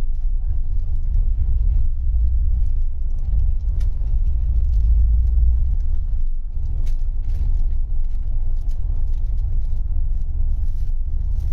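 Steady low rumble of a moving bus, engine and road noise heard from inside the cabin, with a few faint clicks and rattles.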